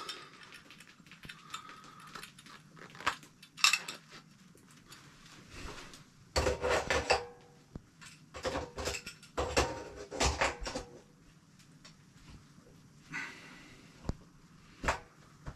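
Metallic clanking and knocking as stainless-steel corny kegs and their fittings are handled and set upside down on a keg washer. The clatters come in several short clusters, the busiest in the middle.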